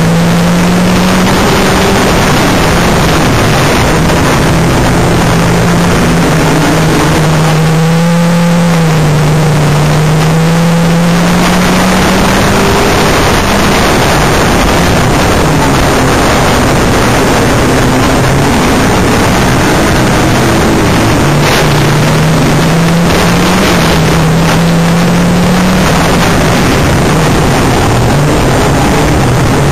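Banger-racing car's engine heard loud from inside the cabin, revving up and easing off lap after lap over heavy road and wind noise. The engine briefly drops away about eight seconds in.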